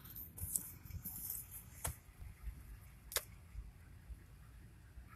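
Storm wind buffeting a parked car, heard muffled from inside the cabin as an uneven low rumble, with two sharp ticks about two and three seconds in.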